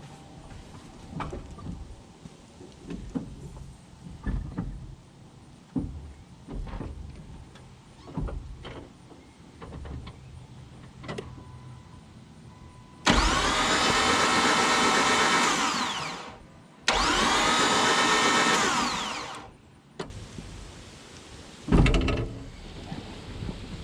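Two blasts of compressed air, each about two to three seconds long, blowing debris out of a spark plug hole. Before them come scattered light knocks and clicks of tools being handled, and after them one sharper knock.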